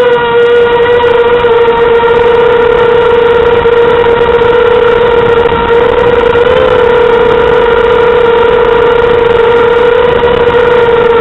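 Mini quadcopter's 2400kv brushless motors and propellers whining steadily in flight: one loud, buzzy tone that holds a nearly constant pitch, wavering briefly about six and a half seconds in.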